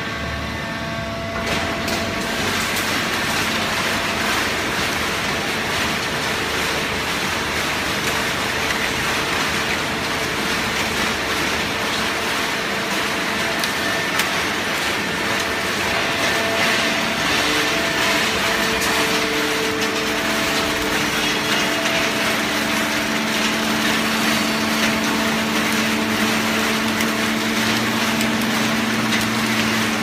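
Fully automatic horizontal hydraulic baling press running: a steady, loud machine noise from its motor and hydraulic pump, with hum tones that shift and grow stronger in the second half.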